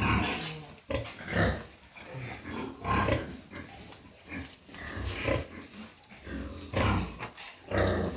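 Pigs grunting in short, irregular bursts every second or two.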